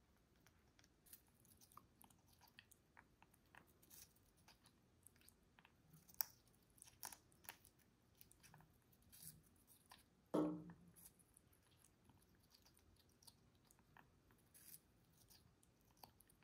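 African grey parrot biting and chewing watermelon: faint, scattered crunchy clicks of its beak in the wet flesh. About ten seconds in, one brief louder sound falls sharply in pitch.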